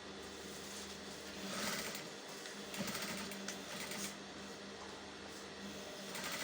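Sewing machine running as a seam is stitched across the trouser crotch, its steady hum swelling louder in spurts about a second and a half in, around three seconds in, and near the end.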